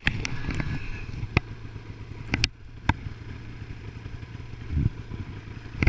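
Snowmobile engine running steadily at low speed, with a few sharp knocks scattered through.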